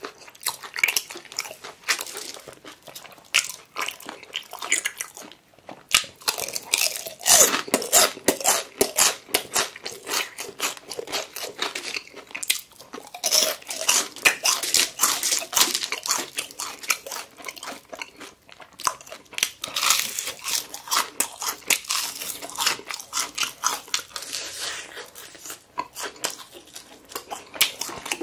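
Close-miked chewing and biting of crispy fried chicken: a dense crackle of crunches from the fried crust, coming in louder clusters several times as fresh bites are taken.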